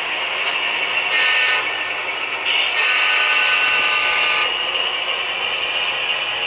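Sound-equipped HO scale model locomotive's DCC sound decoder sounding its horn through the model's small speaker: a short note about a second in, then a longer one.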